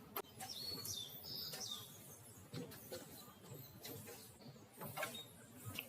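Wild forest birds chirping, with a few short high calls in the first two seconds, among soft intermittent clicks and rustles.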